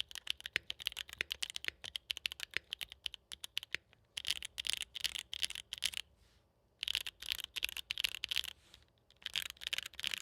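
Mechanical keyboard with factory-lubed tactile Gateron x KBDfans Blizzard switches in an aluminum plate being typed on. A steady stream of keystrokes is followed by faster bursts of clacks, broken by short pauses about six and nine seconds in.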